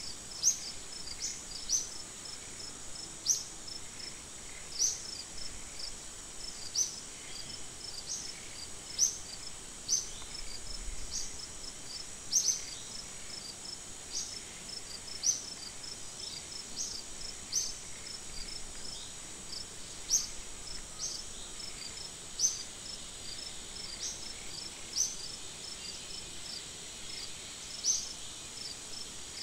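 Steady high-pitched insect drone, with short high chirps repeating every second or two and small twittering runs between them.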